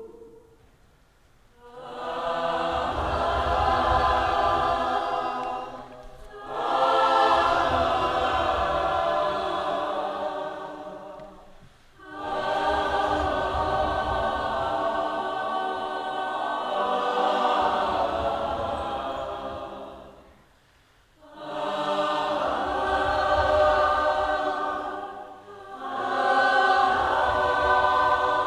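A group of voices singing together, choir-like, in long held phrases separated by short pauses.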